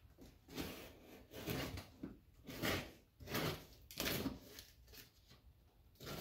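Cardboard shipping box being handled and pulled at, a series of short scraping rubs, roughly one every second.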